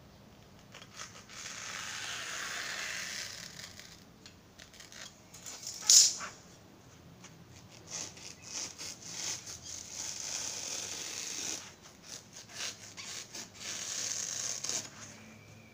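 Snap-off utility knife blade drawn through a sheet of foam sponge, giving several long scratchy cutting strokes with small ticks between them and one sharp click about six seconds in.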